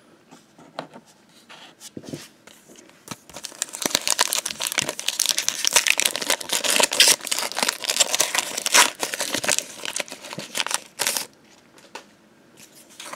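A foil Pokémon booster pack being torn open and crinkled by hand: dense crackling and tearing of the foil wrapper that starts about three seconds in and dies away near the end.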